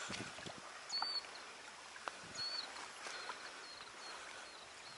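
Light, steady rain falling, a soft even hiss, with a few short high bird chirps and some faint knocks.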